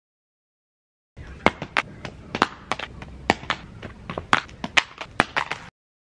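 An iPhone clattering on concrete paving tiles: a fast, irregular run of sharp hard clicks and knocks, about three a second. It starts about a second in and cuts off suddenly near the end.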